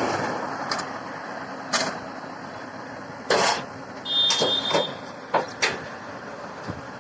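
Excavator engine running steadily, with several sharp knocks and a brief high beep a little past halfway.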